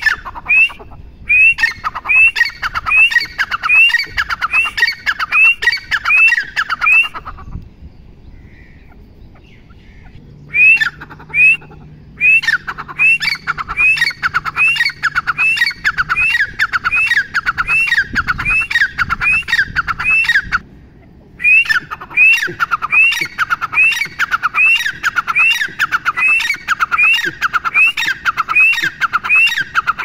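Grey francolin calling: a loud series of repeated sharp rising notes, about two a second. It comes in three long bouts, with a pause of about three seconds after the first and a brief break after the second.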